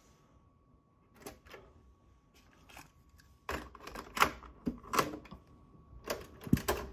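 Cassette deck of a Sanyo M-X650K boombox being loaded by hand, heard as a run of sharp plastic clicks and clacks. A few clicks come about a second in, a busy cluster in the middle as a tape is pushed into the cassette door, and more clacks near the end as a transport key is pressed.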